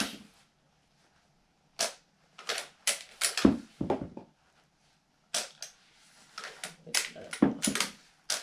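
Elite Force Legends Saddle Gun lever-action airsoft rifle being worked by hand: sharp mechanical clicks and clacks from the lever and action. They come in two runs, one starting about two seconds in and another from about five seconds in.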